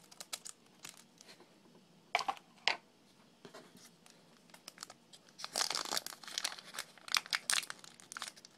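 Foil Pokémon trading-card booster pack wrapper being opened. Two sharp clicks come about two seconds in, then from about five seconds in the wrapper crinkles and tears continuously as it is pulled apart.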